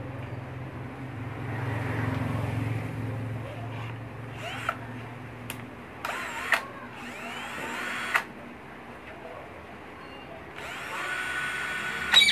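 Flipkart SmartBuy 20V cordless drill run briefly twice, about six and about eleven seconds in, while its high/low speed shift switch is worked, with sharp clicks of the switch between runs and a loud click near the end.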